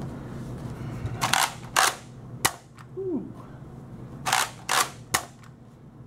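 Nerf Mediator pump-action blaster primed and dry-fired twice. Each time the pump grip clacks back and forward, then the plunger snaps forward with a sharp crack on the trigger pull.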